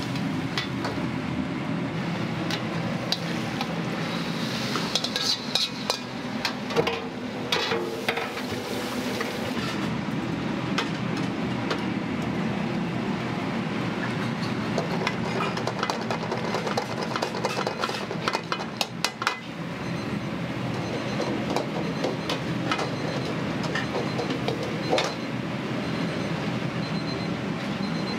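Commercial kitchen work: metal utensils clinking and knocking against pots, pans and dishes at irregular intervals over a steady low hum, which dips briefly about two-thirds of the way through.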